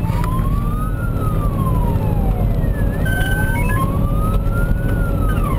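Fire engine's wailing siren, rising and falling slowly about once every four seconds, heard from inside the cab over the steady low rumble of the truck's engine and road noise.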